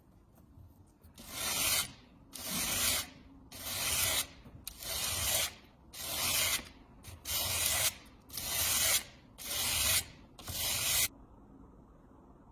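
Hand sanding: nine even rubbing strokes, about one a second, each a short hiss with quiet between.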